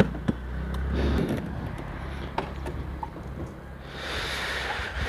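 A sharp click as the TVS Ntorq scooter's seat is pressed down and latched shut, with a second, lighter click just after. A low steady rumble runs underneath, and a brief rushing noise comes about four seconds in.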